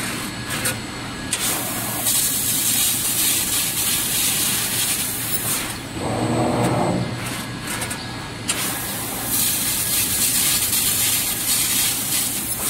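Fiber laser tube cutting machine at work: a loud hiss, in two long stretches of about three seconds each, typical of the assist gas blowing through the cut. Between the stretches the machine's drives give a short hum.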